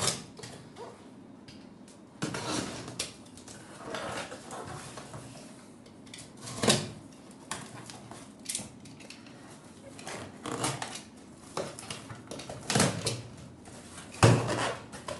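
A cardboard shipping box being opened and handled: irregular rustling, scraping and knocking, with a louder thump near the end.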